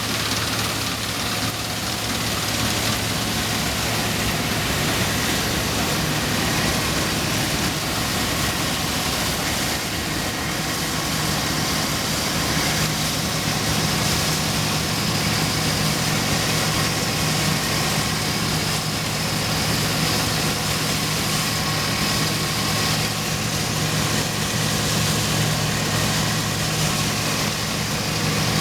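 Dronningborg 900 combine harvester running steadily under its Perkins 4-154 four-cylinder diesel engine. The engine note changes slightly and grows a little stronger about eleven seconds in.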